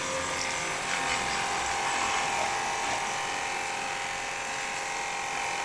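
Cordless battery-powered pressure washer running steadily, its small motor humming under the hiss of the water jet spraying onto a motorcycle.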